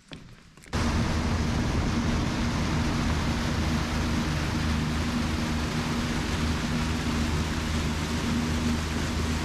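An engine running steadily, a low even hum under a loud rushing hiss, cutting in suddenly less than a second in.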